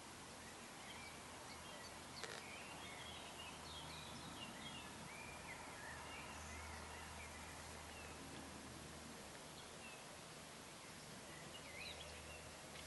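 Faint outdoor ambience of songbirds chirping, busiest from about two seconds in and again near the end, over a low steady hum. A single sharp click comes about two seconds in.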